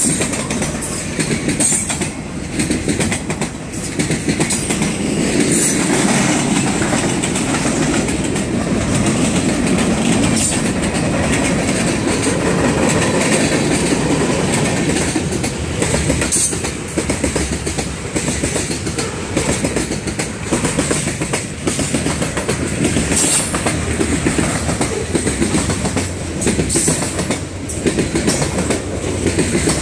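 Freight cars of a long train (covered hoppers and gondolas) rolling steadily past: a continuous rumble of steel wheels on rail, with a repeated clickety-clack as the wheels cross rail joints.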